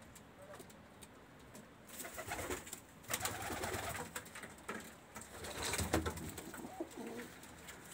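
Domestic pigeons cooing in a loft, starting about two seconds in and coming and going.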